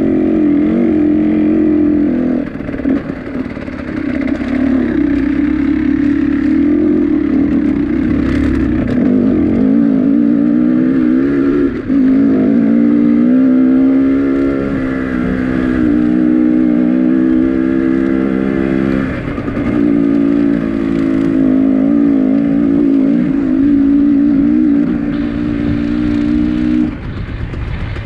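A motor vehicle engine running loud at fairly steady revs, its note dipping briefly and picking up again a few times.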